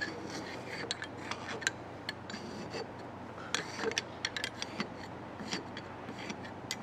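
A flat metal blade scraping and picking at thick caked carbon soot in the variable-geometry (VGT) vane section of a BMW 320d GT diesel turbocharger cartridge, in quiet, irregular short scrapes and light metallic clicks. The carbon is heavy enough to keep the VGT vanes from moving smoothly.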